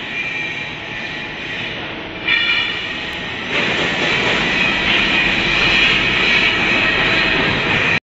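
Steady industrial machinery noise in a factory workshop, a hissing, grinding din with a brief metallic squeal about two seconds in; it gets louder about three and a half seconds in.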